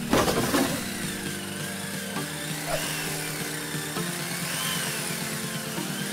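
Background music over a steady whirring, machine-like sound. A loud crash of rubble sounds right at the start.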